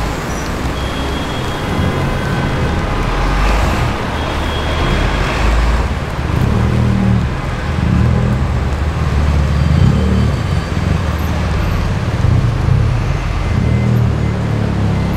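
City street traffic: a steady wash of road noise from passing and idling vehicles, with a low engine rumble that grows stronger about six seconds in and stays.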